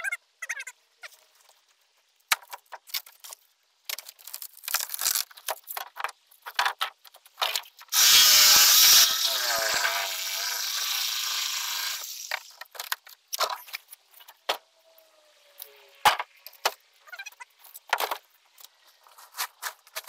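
Scattered scrapes, taps and knocks of fiberglass and wood being handled. About eight seconds in, a power tool runs loudly for about a second, then winds down with a falling pitch over the next few seconds. A short squeak follows later.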